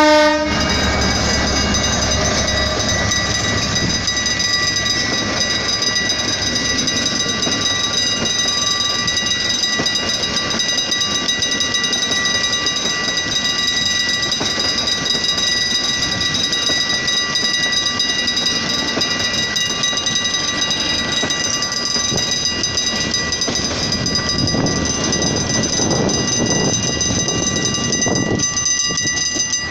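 Passenger coaches rolling past over a level crossing, a steady loud rumble of wheels on rail with clusters of clacks over the joints near the end. Through it runs the level-crossing warning signal, sounding steadily, and a horn blast ends right at the start.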